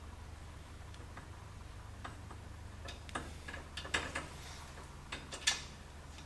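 Scattered light metallic clicks and taps of brass refrigerant hose fittings being handled and threaded at an air conditioner's service port, more of them in the second half, the loudest near the end. A steady low hum runs underneath.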